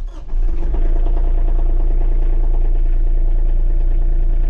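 Kioti compact tractor's diesel engine starting up, catching in the first half second, then running steadily.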